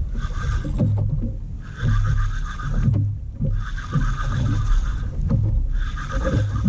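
A Penn Spinfisher spinning reel being cranked in spurts of about a second with short pauses, its gears whining, as a hooked yellowtail snapper is reeled in. A steady low rumble runs underneath.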